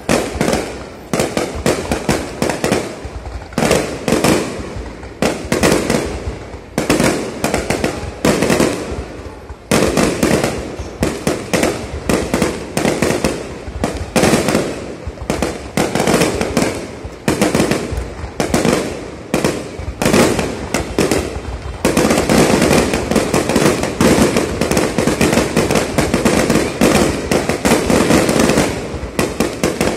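Aerial firework shells bursting overhead in a rapid, continuous barrage of bangs. The bangs come thickest and loudest in the last several seconds.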